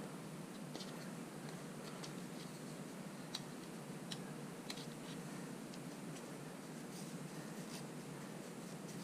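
Fingers rubbing and peeling leftover tape adhesive off a touchscreen unit, making scattered light scratches and small clicks at irregular intervals over a steady background hiss.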